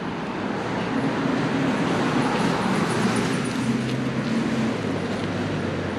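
Steady rumble of a motor vehicle's engine with rushing road noise, growing a little louder about a second in and easing off near the end.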